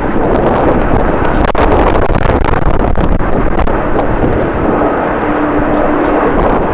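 Strong wind buffeting the microphone with crackling gusts, over the steady rumble of a jet airliner's engines; a steady hum comes in about two-thirds of the way through.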